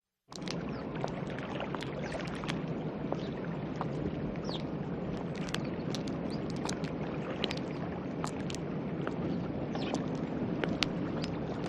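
Steady low rumble with a hum running under it and many short, sharp ticks scattered through it, starting just after a brief moment of silence.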